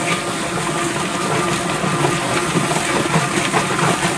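Drum-style chicken plucker running steadily, its spinning plate tumbling a scalded chicken against rubber fingers to strip the feathers, with a hose spraying water into the drum.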